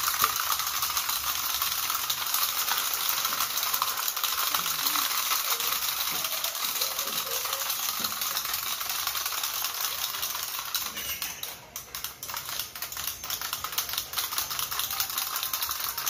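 A group of plastic wind-up toy parrots hopping together on a hard tile floor: a dense, fast rattle of clicking clockwork and tapping plastic feet. It thins out a little over ten seconds in, then picks up again.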